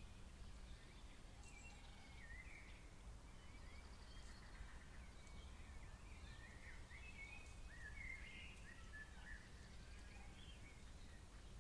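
Birds singing faintly: many short chirps and quick warbling phrases, some overlapping, over a steady low rumble of background noise.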